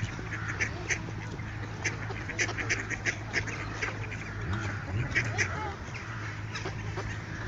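Mallard ducks quacking, a rapid run of short calls several times a second, over a low steady background hum.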